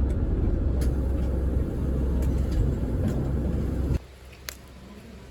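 Steady low rumble of a vehicle in motion that cuts off abruptly about four seconds in, leaving a much quieter background with a single click.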